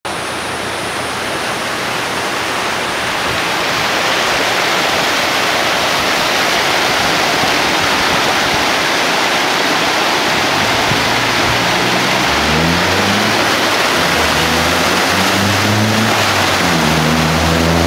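Rain-swollen stormwater rushing down a concrete canal, a loud steady rush. From about twelve seconds in, a motor vehicle's engine is heard over it, its pitch rising in steps as it accelerates.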